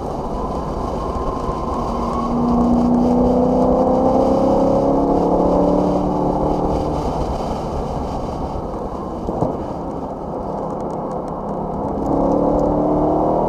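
BMW E90 M3's V8 engine heard from inside the cabin at speed on track, pulling hard with its note climbing steadily, then easing off with a single short knock partway through. Near the end it comes back on full power, under a steady rush of road and tyre noise.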